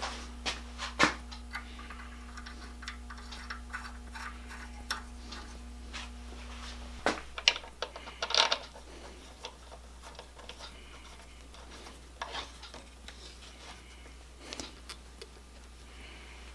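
Small clicks and taps of metal parts and hand tools being handled on a workbench, with a few louder clacks about seven and a half to eight and a half seconds in. A faint steady hum underneath stops about seven seconds in.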